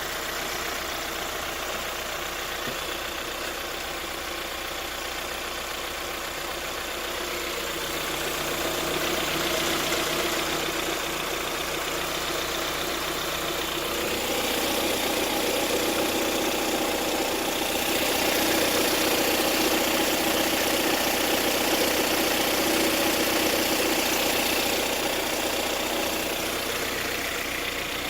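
Lada Priora 2170 petrol engine running with a pronounced diesel-like clatter after its pistons were replaced with non-interference pistons. The old knock from the No. 2 piston is gone, but the engine now clatters like a diesel. It gets louder partway through and eases off near the end.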